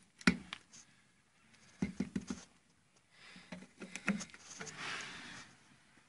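A gloved hand knocking and scraping at the car's rust-rotted underbody sheet metal: one sharp knock near the start, a quick run of taps about two seconds in and again near four seconds, then a rasping scrape about a second long.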